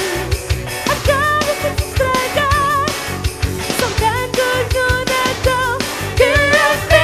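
Loud rock music with a regular drum beat and a wavering melody line.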